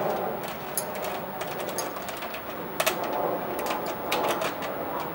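Irregular light metal clicks and taps of a small hand wrench against the screw and nut of a cowling ferrule, over rustling handling noise, with one sharper click about three seconds in.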